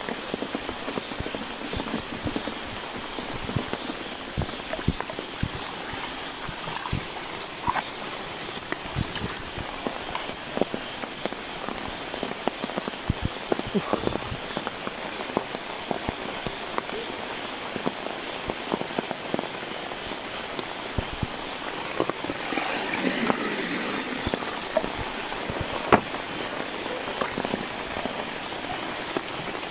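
Steady rain falling, with many individual drops ticking sharply close by, over water running and splashing through a muddy channel into a bamboo fish trap. The water grows louder for a couple of seconds about two-thirds of the way in.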